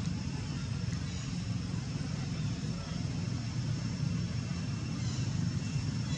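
Steady low mechanical rumble, like a vehicle engine running, with a faint high steady whine above it.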